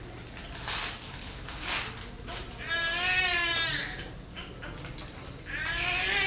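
Newborn baby crying: two long wailing cries with a wavering pitch, the first about two and a half seconds in and the second starting near the end.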